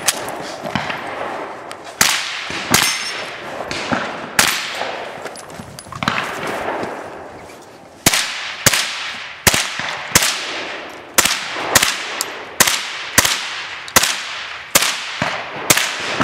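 GSG-5 .22 LR semi-automatic rifle firing: a few single shots in the first half, then a steady string of shots about two or three a second from about eight seconds in. Each sharp crack trails off.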